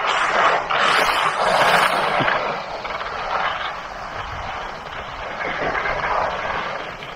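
Skis sliding and scraping over hard, icy packed snow on a downhill run: a continuous rushing hiss, loudest in the first couple of seconds and easing somewhat after that.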